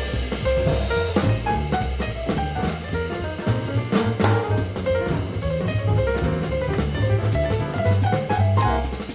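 Live jazz with piano, double bass and drums playing together: a moving piano line over walking bass notes, with steady cymbal and drum strokes. It is an FM radio broadcast recorded onto cassette tape.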